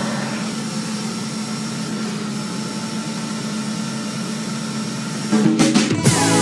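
Handheld leaf blower running steadily, a rush of air with a low hum. Music comes back in about five seconds in.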